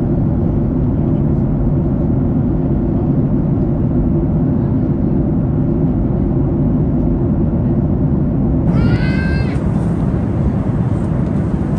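Steady, loud airliner cabin noise inside a Boeing 737-800 in flight: a deep, even rush of engine and airflow noise. About nine seconds in comes one brief, high-pitched, voice-like squeal.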